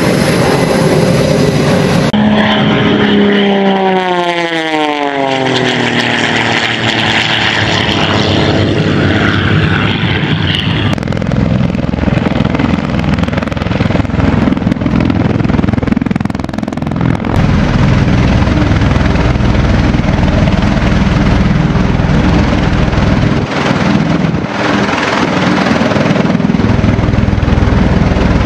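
Military aircraft at close range: a jet's whine falls steeply in pitch as it passes, then steady heavy rotor noise from an MV-22 Osprey tiltrotor and a heavy-lift helicopter, deepening to a strong low rumble as the Osprey lands.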